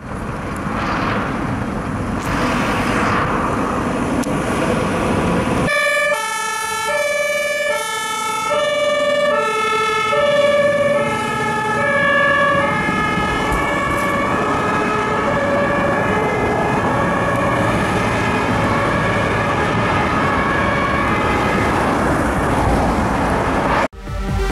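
Fire engine's two-tone siren alternating between a high and a low note, coming in about six seconds in over engine and road noise. Before that, only traffic and road noise.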